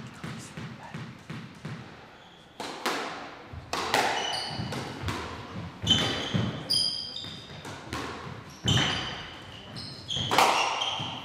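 Squash ball bounced a few times on the court floor, about three bounces a second, then a rally: sharp racket strikes and the ball smacking the walls, with short high squeaks of shoes on the court floor.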